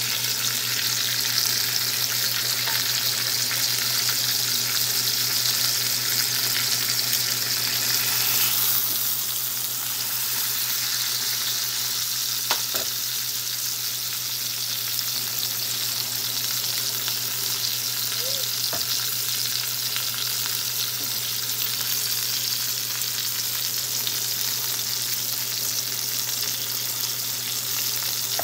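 Beef rump roast searing in beef tallow in a hot frying pan: steady sizzling fat, easing slightly about nine seconds in, over a steady low hum.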